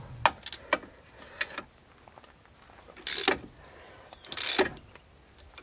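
Socket tools working a seized wheel-hub bearing bolt: a few light metallic clicks, then two short bursts of ratchet clicking about a second apart.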